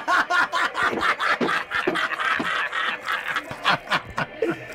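Two men laughing hard together, a quick, steady run of ha-ha bursts.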